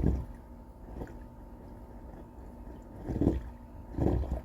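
Water gurgling and sloshing in a clogged dryer vent line as the dryer's exhaust air blows over it, low and uneven, with louder swells at the start and twice near the end. The trapped water is the sign of a vent line stopped up with lint.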